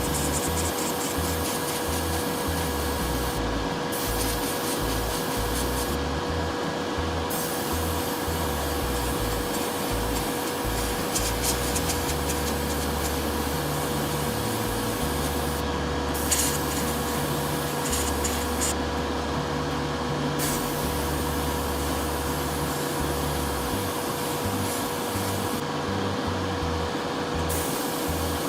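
A small electric blower running steadily, an airy rush with a constant hum. Light rubbing and scraping comes and goes over it, loudest about eleven and sixteen seconds in.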